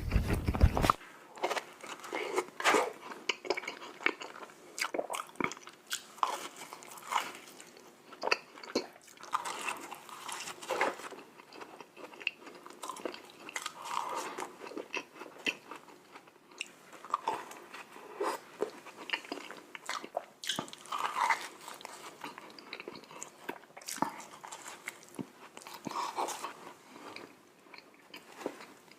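Close-miked eating of glazed donuts: bites and chewing, heard as a steady run of small irregular wet clicks. A louder bump comes in the first second.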